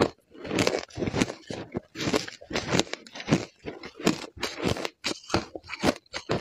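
Shaved ice crunched between the teeth in a quick, uneven run of loud crunches, a few each second.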